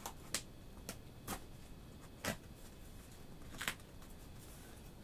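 Packaging being worked open by hand: about six sharp, separate clicks and snaps at uneven intervals over faint handling noise.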